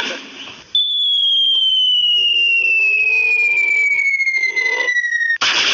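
Cartoon falling whistle sound effect: a single clear tone gliding steadily downward for about four and a half seconds, ending in a sudden loud burst like an explosion near the end.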